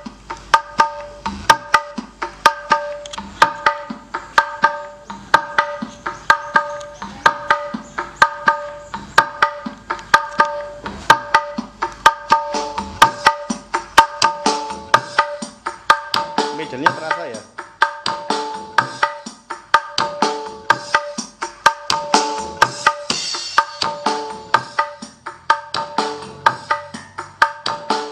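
Dangdut music with a steady drum beat, played through a bare 8-inch El Sound midlow speaker driver with no enclosure.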